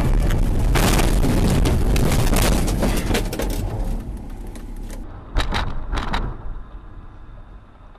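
Car noise with a loud spell of dense crackling and clattering knocks about a second in, fading after a few seconds, then two sharp knocks about five and a half and six seconds in.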